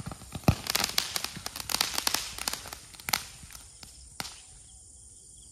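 A homemade bundle of twenty sky-shot rockets going off in quick succession: a rapid string of crackling launches and small pops. It is densest in the first three seconds and tails off, with the last one about four seconds in.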